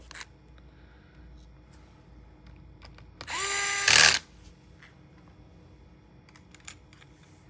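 A small electric screwdriver whirs for about a second, driving in a bracket screw. A few faint clicks of small parts being handled follow.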